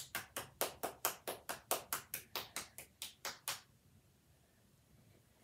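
Hand clapping in a steady, even rhythm, about four to five claps a second, stopping about three and a half seconds in.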